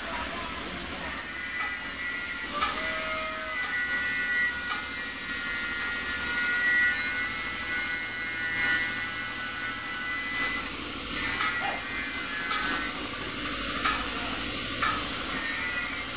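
Gravity-feed spray gun hissing steadily as compressed air atomises paint, with a few short clicks.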